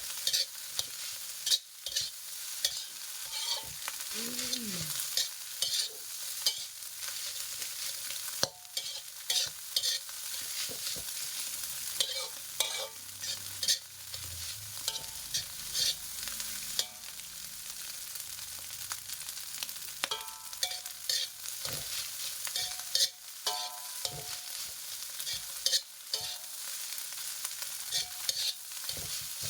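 Fried rice sizzling in a pan while a spatula stirs and tosses it, with frequent irregular scrapes and knocks of the spatula against the pan over a steady frying hiss.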